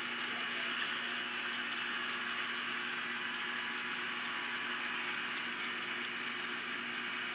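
Steady outdoor hiss with faint constant hum tones from the nest-cam microphone; no bird calls stand out.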